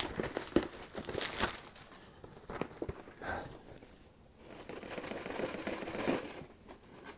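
Stubborn plastic wrapping being crinkled and torn open by hand, a run of crackles and rustles with one sharp crackle about a second and a half in. It eases off briefly about halfway through and picks up again near the end.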